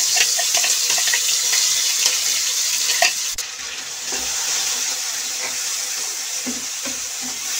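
Wet chopped onion-tomato masala sizzling in hot oil in a kadhai as it is stirred with a spatula, the first stage of frying the paste. The sizzle is loud at first and drops to a lower, steady level after a sharp click about three seconds in.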